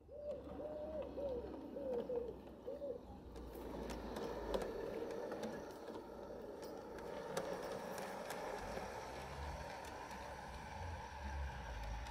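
Accucraft County Donegal diesel railcar models running on garden-railway track: a steady motor-and-gear hum with scattered sharp clicks of the wheels over the rail joints. A pigeon coos several times in the first three seconds.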